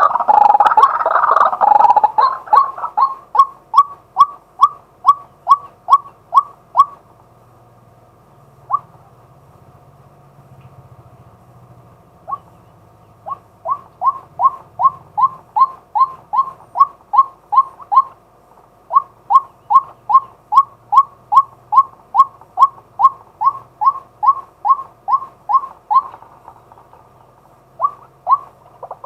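Male white-breasted waterhen calling: a dense run of calls in the first two seconds gives way to long series of short, evenly repeated notes at about three a second, broken by a few pauses, and the dense calling starts again at the very end.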